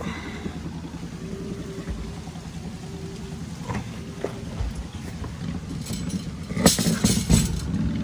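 Pigeons cooing softly in a loft over a steady low hum. About six and a half seconds in, a quick run of sharp clicks and knocks as the turn-button latch of a white loft-box door is worked and the door is pulled open.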